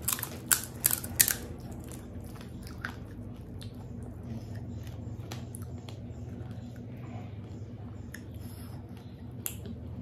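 Crisp panipuri shell cracking with several sharp snaps as a finger breaks a hole in it, in the first second or so, then faint scattered clicks over a steady low hum.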